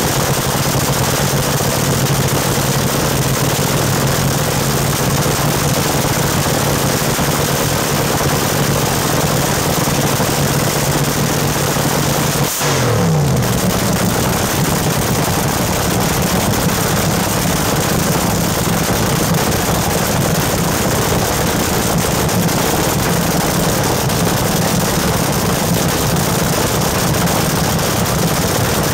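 Dragster engine running loud and steady through open exhaust pipes. About halfway through, its speed dips for a moment and then settles at a faster idle.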